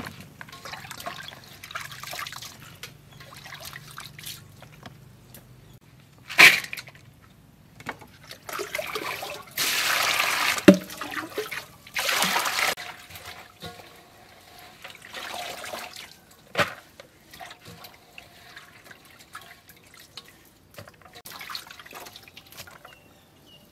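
Water splashing and sloshing as bean sprouts are washed by hand in a metal bowl of water. It comes in a few separate bursts, with a few sharper splashes or knocks among them.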